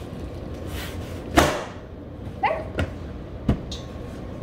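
Plastic snap-on toilet seat being pressed down onto the rim of a plastic bucket: one loud plastic thump about a second and a half in, then a few lighter knocks and clicks.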